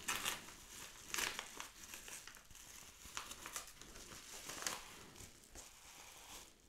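Yellow paper mailer envelope being crumpled and torn open, with the bubble wrap inside crinkling as the package is pulled out. The crinkling comes in uneven bursts about a second apart and dies down near the end.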